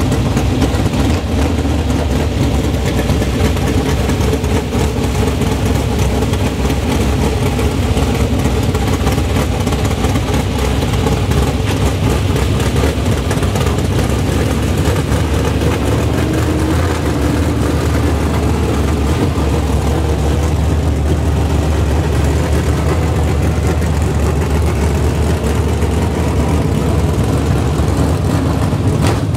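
Dirt modified race car's V8 engine idling loud and steady.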